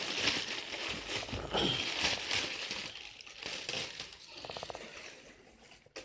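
Clear plastic bag crinkling and rustling as it is pulled off a loudspeaker driver. It is loudest in the first few seconds and fades out near the end.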